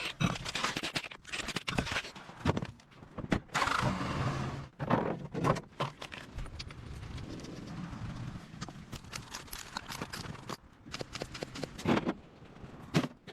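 Irregular metallic knocks, clanks and scraping of hand tools being worked on an old vehicle, over a low steady hum.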